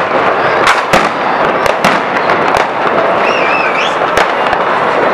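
Fireworks going off: a dense crackling hiss of rockets and fountains, with many sharp bangs at uneven intervals and a short wavering whistle about three seconds in.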